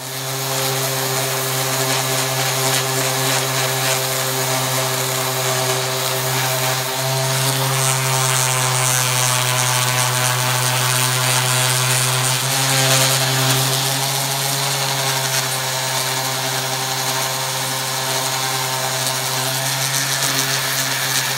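DeWalt random orbit sander with 220-grit paper running steadily against the steel of an axe head, sanding off mud, rust and old paint. A constant motor hum under the hiss of the abrasive.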